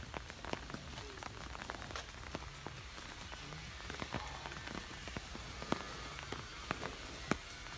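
Rain falling steadily, with many irregular sharp drops striking close by over an even hiss.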